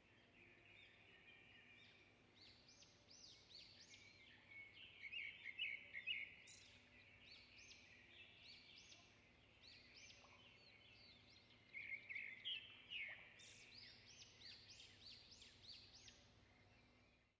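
Songbirds chirping, with many quick rising and falling notes in repeated phrases, busiest in short spells a third and two-thirds of the way through. The sound cuts off suddenly at the end.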